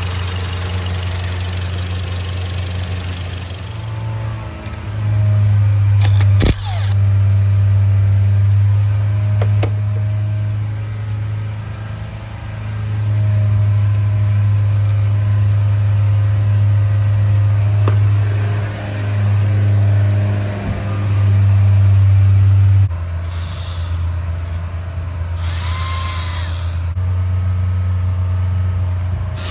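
Skoda Kodiaq 2.0 TSI four-cylinder turbo petrol engine running steadily, its low hum swelling and fading in loudness, with a couple of sharp clicks a few seconds in. The engine is logging random and cylinder 1–4 misfires along with a low idle speed.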